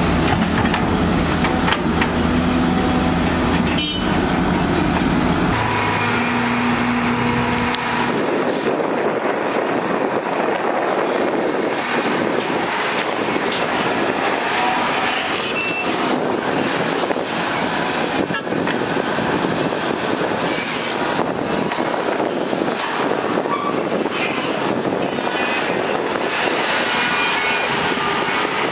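Volvo EC480DL hydraulic excavator working: its diesel engine running steadily under load with hydraulic strain. About eight seconds in, the deep engine tone drops away, leaving a rougher, noisier machine sound with scattered knocks of earth and rock.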